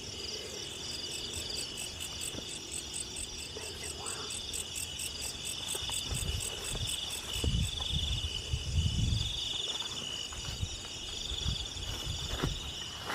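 Night-time insect chorus, a steady high trilling with a fast, even pulse. A few low rumbles and thuds come and go about six to ten seconds in.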